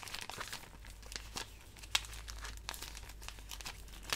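Clear plastic pocket pages of a trading-card binder crinkling as they are handled and turned, an irregular run of crackles with one sharper crackle about two seconds in.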